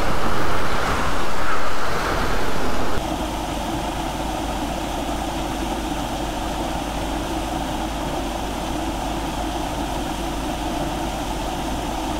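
Water running steadily, a thin stream pouring from a pipe with a small waterfall splashing into a rocky channel. It is louder and surging for about the first three seconds, then settles to an even rush.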